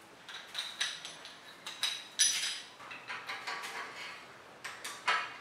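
Metal bicycle parts clinking as a quill stem is fitted into the headset: a series of sharp metallic clinks and taps, some ringing briefly, the loudest a little over two seconds in and another just before the end.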